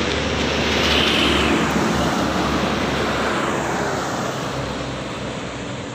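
A heavy fuel tanker truck passing close on the road. Its engine and tyre noise swell to a peak about a second in, with a falling pitch, then fade as it pulls away.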